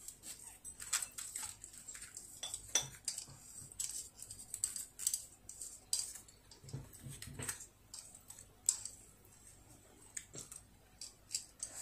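Chopsticks clicking and scraping against a foam natto tray as sticky natto is stirred and eaten, in irregular sharp taps, with a few softer mouth sounds of eating about halfway through.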